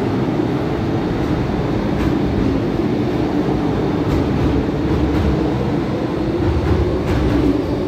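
An MTR Island Line Metro-Cammell M-Train electric multiple unit running along the platform as it leaves the station, a steady rumble with a humming tone and occasional light clicks.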